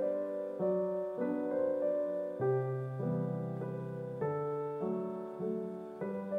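Background piano music: gentle sustained chords that change about every half second.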